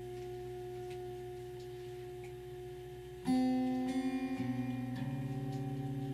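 Improvised acoustic drone music: several steady held tones, joined about three seconds in by a sudden louder, brighter tone that wavers in a quick pulse.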